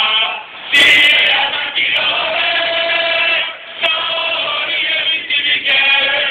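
Football supporters singing a player's chant together, many voices in unison, with a short loud noisy burst about a second in.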